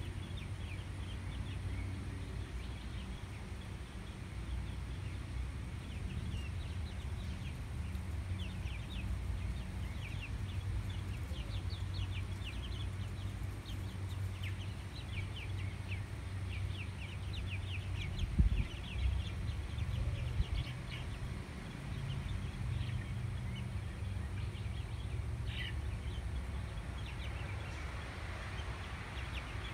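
Backyard chickens clucking and chirping quietly in short, scattered calls, over a low steady rumble; a single thump about eighteen seconds in.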